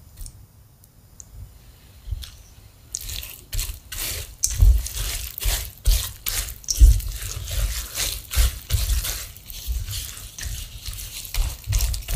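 A wooden spatula stirs a sticky, wet mix of natto and raw koji in a stainless steel bowl, making irregular wet, squelching strokes. After a quieter start with a few faint clicks, the stirring starts about three seconds in and carries on steadily.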